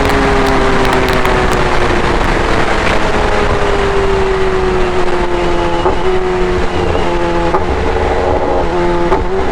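Kawasaki ZX10R's inline-four engine with an SC Project full-system exhaust running under way, its pitch sliding slowly down, over a loud steady rush of wind and road noise.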